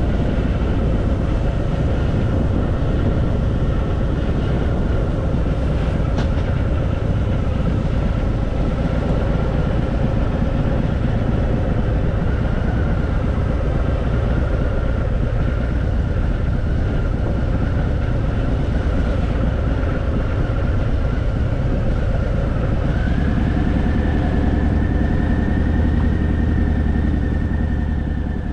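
Harley-Davidson Fat Boy's V-twin engine running steadily on a descent, loud and dense in the low end. Near the end a higher whine steps up in pitch and holds.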